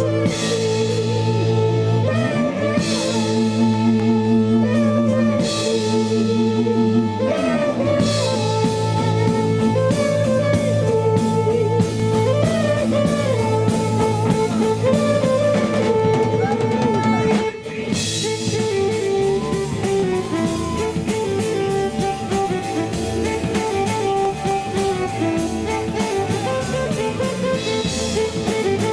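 Music from a drum kit and guitar playing together, with sliding guitar notes and a brief drop about two-thirds of the way through before the playing carries on.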